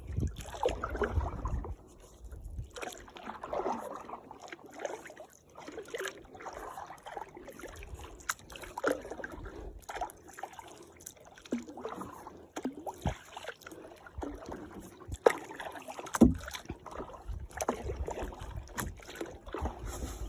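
Kayak paddle strokes: the blade dipping and splashing in the lake water, a swell of water sound about every two to three seconds.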